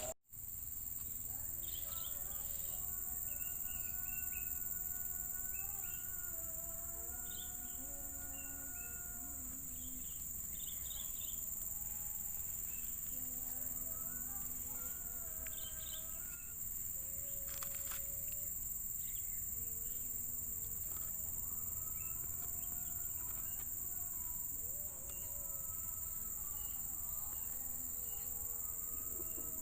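Steady, high-pitched drone of rainforest insects such as cicadas and crickets, with softer held tones that step in pitch lower down. The sound drops out briefly at the very start.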